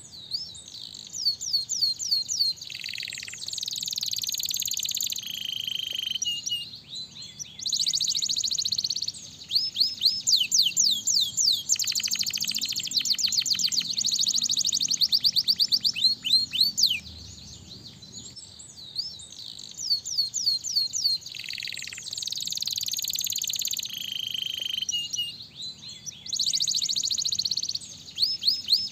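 Domestic canary singing a long, high-pitched song of fast trills, buzzy rolls and rapidly repeated sweeping notes, phrase after phrase with only brief pauses. It is a lure song used to get other canaries to sing.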